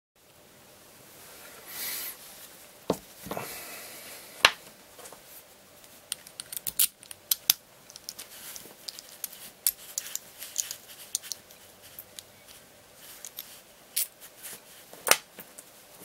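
A brass Union oval pin-tumbler lock cylinder being handled and picked with a worm pick and tension wrench: irregular small metallic clicks and scrapes as the pick is wriggled in the keyway, with a few louder knocks of metal on metal.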